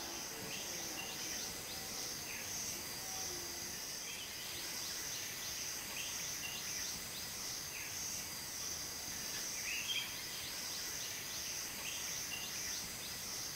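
A steady high-pitched insect chorus with scattered short bird chirps.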